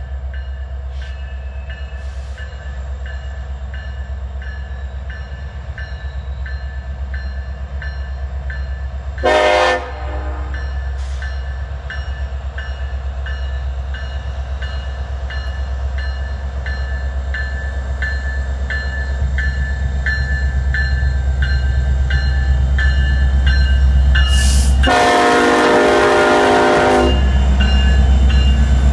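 Norfolk Southern 1066, an EMD SD70ACe diesel locomotive, approaching and passing with its engine rumble growing steadily louder, while a bell rings steadily. Its air horn gives a short blast about nine seconds in and a long blast of about two seconds near the end.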